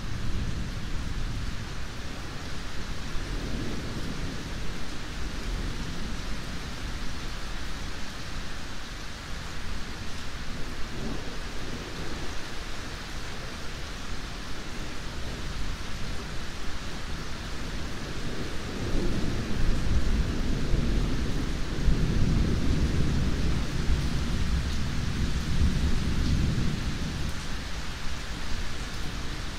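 Steady rain hissing, with thunder rumbling low: softly a few seconds in, then a long, louder roll through the last third.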